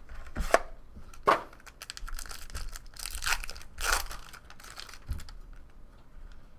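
Plastic wrapping being torn open and crinkled on a sealed box of trading cards. There are two sharp snaps in the first second and a half, then a run of crackling, and a dull thump near the end.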